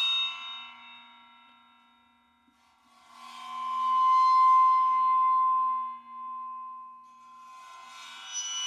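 A very small gong bowed on its edge with a cheap student cello bow played without rosin, giving sustained metallic ringing tones that swell and fade. One bowed note dies away at the start; a second swells up about three seconds in to a strong steady ringing tone and stops about six seconds in; a third begins near the end.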